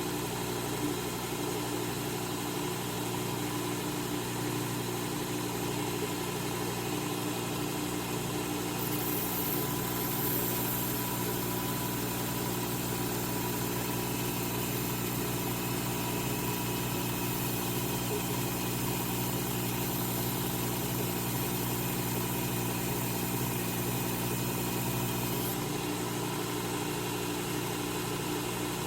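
Work Sharp Knife and Tool Sharpener's belt grinder running steadily, its motor humming, while a steel pizza wheel is ground against the abrasive belt to raise a burr. A high grinding hiss comes in about nine seconds in and stops a few seconds before the end.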